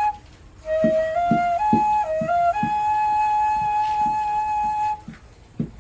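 Daegeum, the large Korean bamboo transverse flute, playing a slow melody of held notes that step up and down, with one long held note in the middle. Soft low strokes keep a steady beat underneath.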